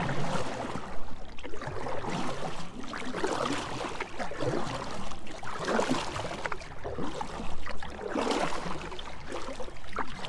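Canoe paddle strokes in river water: a string of irregular watery swishes and splashes, roughly one a second, as the canoe is turned and paddled back upstream.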